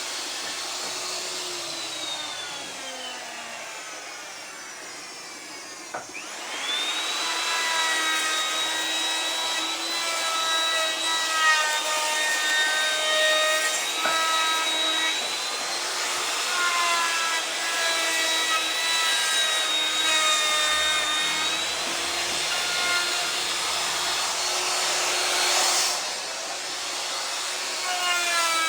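Electric woodworking power tool motor whining at high speed. It winds down a couple of seconds in, and after a click about six seconds in it spins back up to a steady whine, dipping slightly in pitch now and then as it cuts wood.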